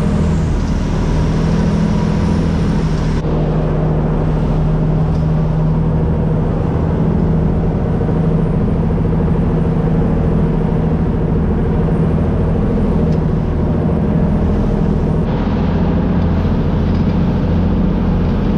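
A steady, unchanging low engine drone of a motor vehicle.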